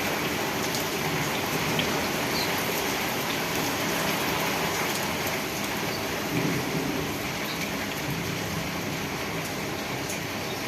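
Steady rain falling, with a dense patter of drops hitting surfaces.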